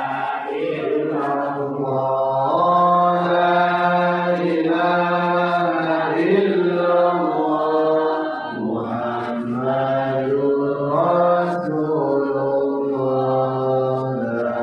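A voice chanting Islamic dzikir in slow melodic phrases with long held notes, briefly pausing for breath about eight seconds in.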